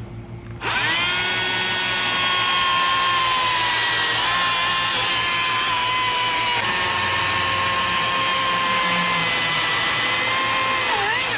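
Stihl MSA 140 C battery-powered chainsaw, fitted with a 10-inch carving bar and quarter-pitch chain, crosscutting through a log. Its motor starts about half a second in and runs as a steady high whine through the cut. The pitch dips briefly just before it stops near the end.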